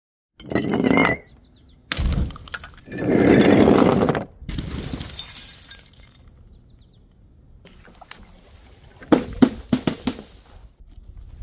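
Glass smashing several times in a row, with one long crash about three seconds in. Near the end comes a run of sharp clinks of glass pieces.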